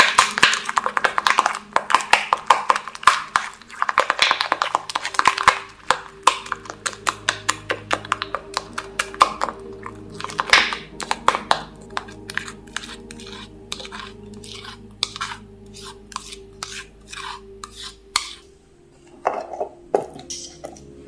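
A spoon or utensil clicking and scraping against a bowl while thick slime ingredients are stirred. A fast run of taps and scrapes at first, thinning to separate clicks about two or three a second, with a faint steady hum underneath.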